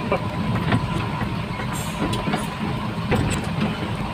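Truck engine running at low speed, heard from inside the cab, with scattered short knocks and rattles as the cab rides over a rough dirt track.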